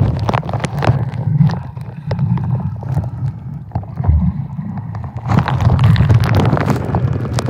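Water splashing and churning close to the microphone in a waterfall's plunge pool, with a heavy low rumble and many sharp splash clicks.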